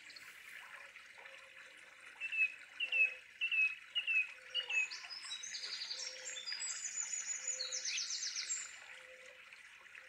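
Birds calling in woodland: a run of five short down-slurred whistled notes, about two a second, then higher rapid trilled phrases, over a steady background hiss and a faint low note repeating about once a second.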